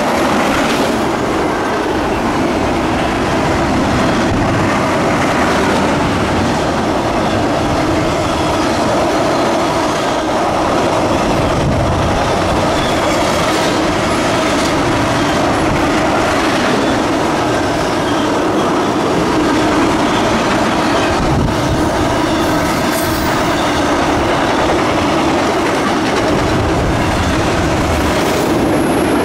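Freight train cars rolling past steadily: the continuous noise of steel wheels running on the rails, with a few short knocks along the way.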